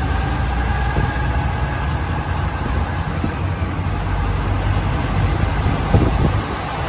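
Truck engine running steadily under way, with road noise and a faint whine that drifts slightly in pitch. There is a brief knock about six seconds in.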